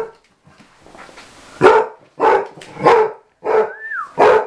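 Basset hound barking, five barks about two-thirds of a second apart starting about one and a half seconds in.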